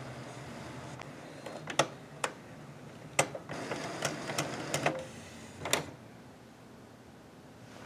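Canon Pixma MG7120 inkjet printer starting up and initializing after being powered on: a steady mechanical hum, then a run of sharp clicks with a short motor whir between about two and six seconds in, going quieter near the end.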